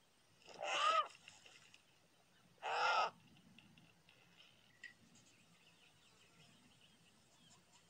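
Two squawks from a cartoon vulture, each about half a second long and about two seconds apart.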